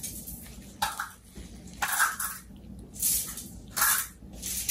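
Gloved palms rubbing together to roll a lump of soap dough into a ball: a run of about five short swishing rustles, roughly one a second.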